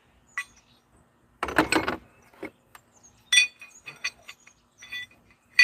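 Steel adapters and rings of a ball joint press kit clinking and rattling together as they are handled and sorted. There is a short rattle near the start, then a string of sharp, ringing metal clinks.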